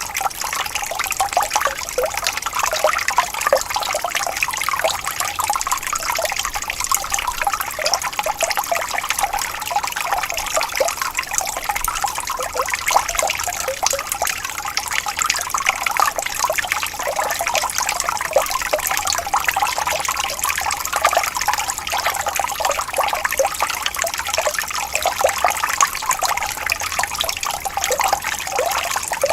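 Running water splashing and trickling steadily, a dense, unbroken patter of many small splashes.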